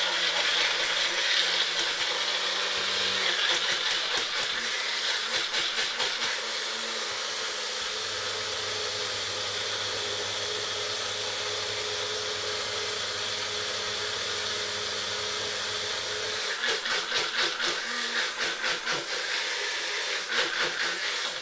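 Ninja personal blender running, chopping spinach and cucumber with only a little water into a thick green drink. The motor runs steadily, with a choppier, pulsing sound for the first few seconds and again in the last five, then cuts off.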